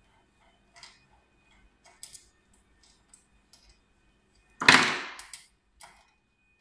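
Small metallic clicks and scrapes of an Allen key and screws being worked on the front panel of a wire-stripping machine, with one much louder metal clatter about two-thirds of the way through.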